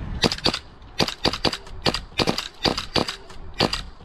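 Airsoft guns firing: about fifteen sharp cracks in quick, uneven succession, some close together in pairs.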